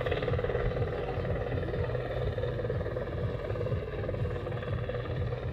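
Large electric scale model Bell AH-1F Cobra helicopter in flight: its main rotor beating as a rapid low thrum, with a steady whine from the electric drive above it.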